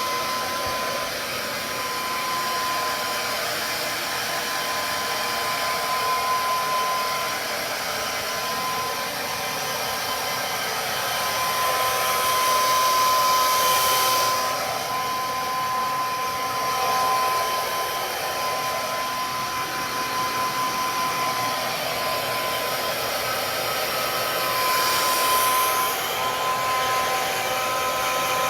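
Hair dryer blowing steadily: a rush of air with a steady whine, drying a Pomeranian's coat after its bath. The airy hiss swells briefly about halfway through and again near the end.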